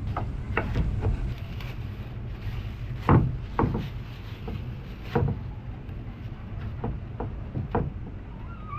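Kitchen knife cutting raw pork on a wooden cutting board, giving sharp knocks at irregular intervals, over a steady low rumble.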